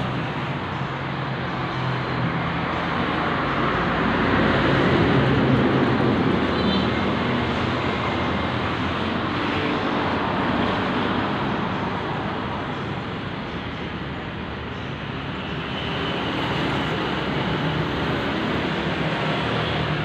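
Suzuki Satria FU 150's single-cylinder four-stroke engine idling steadily, freshly rebuilt and running smoothly. It swells a little louder for a few seconds near the start.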